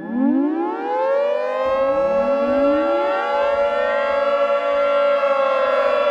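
Civil defense siren winding up from silence, its pitch rising and levelling off into a steady wail. A second wind-up starts over it about a second and a half in.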